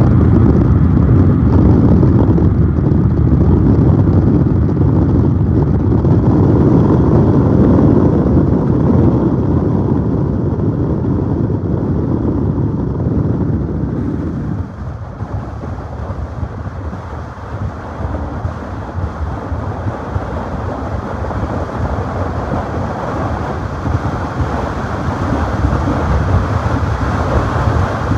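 Road and wind noise of a moving car: a steady noise with a heavy low rumble that drops off suddenly about halfway through, leaving a lighter hiss.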